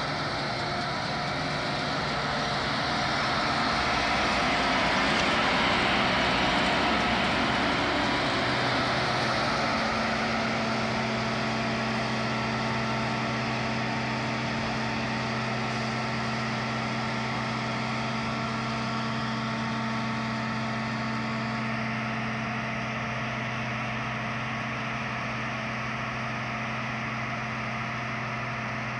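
1999 Claas Mega 204 combine harvester running under load while threshing turnip rape: a steady engine hum with the rush of the threshing machinery. It grows loudest as the combine passes close about five seconds in, then slowly fades as it moves away.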